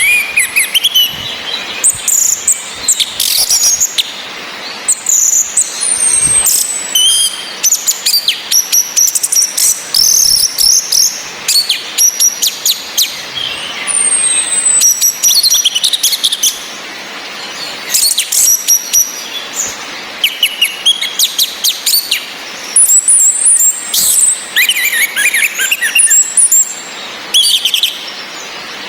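Orange-headed thrushes calling and singing: a dense run of quick, high chirps and whistles, some gliding downward, with short pauses between bursts.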